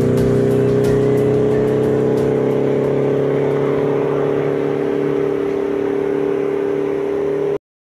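A steady held chord of background music, several sustained tones at once, that cuts off abruptly near the end.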